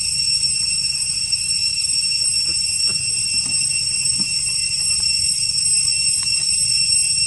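Cicadas droning, a steady high-pitched buzz that never breaks, with a low rumble beneath and a few faint ticks.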